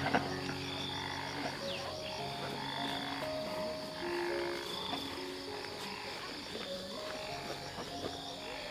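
Soft background music of slow, held notes over a forest ambience, with a chorus of animal calls repeating about once a second.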